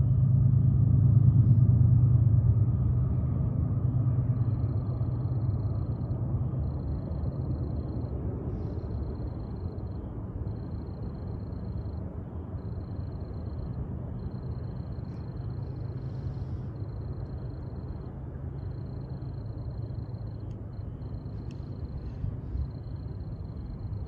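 Freight train cars rolling past on the rails, a steady low rumble that is loudest in the first few seconds and then eases to a lower, even level.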